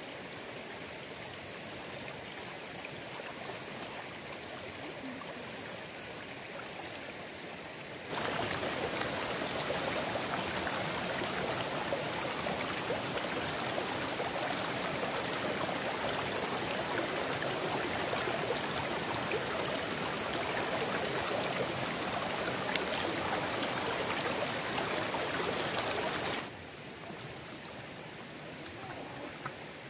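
Stream water running steadily over rocks, a continuous rushing with no pitch to it. About eight seconds in it becomes abruptly louder and fuller, and it drops back to the softer level a few seconds before the end.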